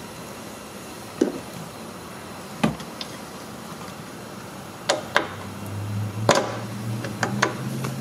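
Scattered metallic clicks and knocks of a ratchet, socket and extension being fitted onto and worked on the seat-mounting nuts, several in an irregular rhythm. A low steady hum comes in about two-thirds of the way through.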